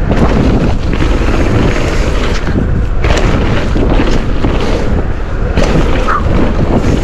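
Fast mountain-bike descent on a wet dirt trail heard through an action camera's microphone: steady wind buffeting with a heavy low rumble, tyres rolling over the dirt, and short knocks and rattles from the Canyon Spectral bike as it hits bumps.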